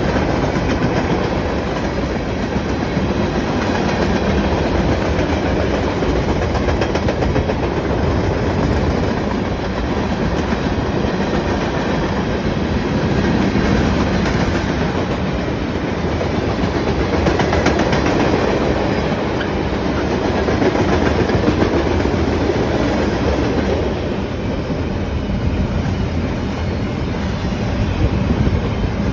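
Norfolk Southern freight train's cars rolling past at steady speed, a continuous rumble of steel wheels on rail.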